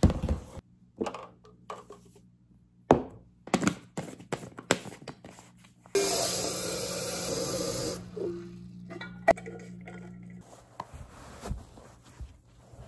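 Kitchen handling sounds: a plastic shaker bottle and protein powder tub knocked and set down on a counter with sharp clacks, then tap water running for about two seconds about six seconds in, followed by scattered lighter taps and rustles.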